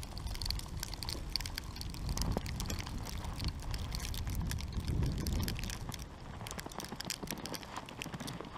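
Faint, irregular crackling and ticking over a low rumble: outdoor ambience in falling snow with camera handling noise as the camera is turned across the field.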